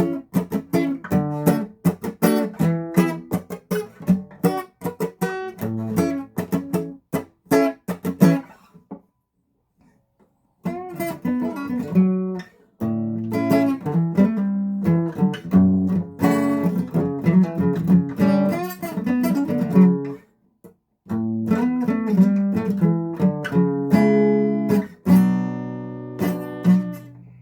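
Guitar strummed by a beginner, simple chords in quick repeated strokes. The playing stops twice for a second or two, and near the end a chord is left to ring out.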